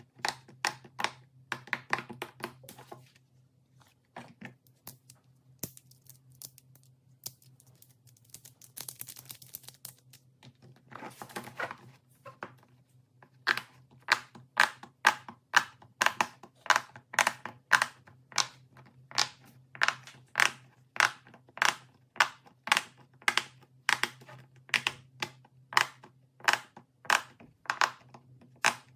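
Sharp clicks and taps: a quick flurry at first, a brief crinkling rustle partway through, then a steady run of sharp taps about two a second over a faint low hum.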